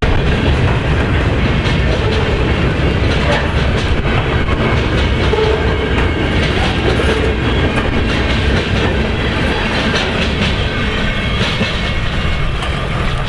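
Freight train rolling past, its cars' wheels clicking over the rail joints in a steady run of noise.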